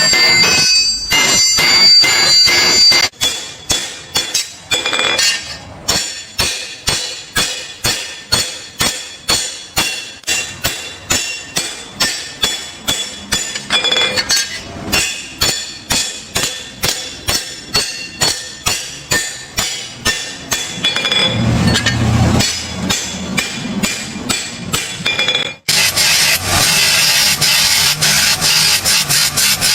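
Hammer blows on a steel blade being forged, a steady rhythm of sharp metallic strikes at about two a second. Near the end they give way to a steady rasping, grinding noise of the blade being worked.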